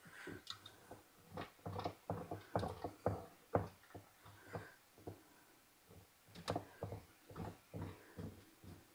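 Cheese being grated by hand on a grater: short, irregular scraping strokes, a few a second, with a brief pause about halfway through.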